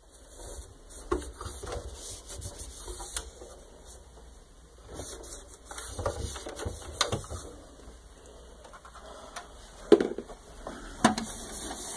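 A cloth wiping over the panel, knobs and faders of a DJ mixer: irregular rubbing and scraping with small knocks, and one sharp knock near the end.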